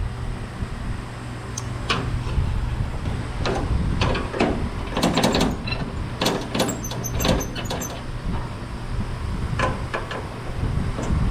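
Scattered metallic clicks and knocks of hand tools and fasteners as a bolt holding a steel lower windshield panel is tightened, with a busier clatter about halfway through.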